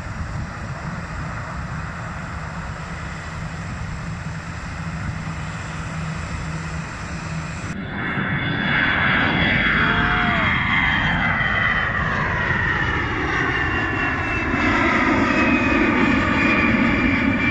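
Steady wind noise over a low rumble, then, after a cut about eight seconds in, the louder engine noise of a twin-engine jet airliner flying low overhead, its tone sweeping in pitch as it passes.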